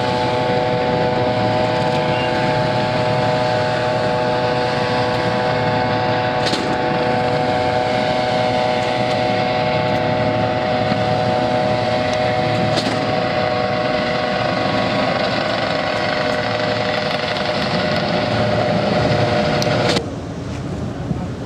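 Eurocopter AS365 Dauphin rescue helicopter hovering, its turbine and fenestron tail rotor giving a steady, many-toned whine over the rotor noise. Near the end the whine cuts off suddenly, leaving wind noise on the microphone.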